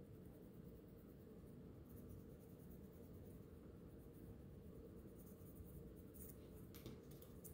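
Faint scratching of a small piece of sandpaper rubbed by hand over the side of a metal watch case, sanding it to a satin finish. It comes in short strokes, more of them in the second half.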